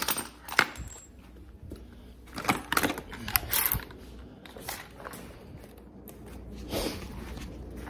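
Irregular clinks, clicks and rattles of metal tools and hardware being handled, with a short burst of clatter a few seconds in and another near the end.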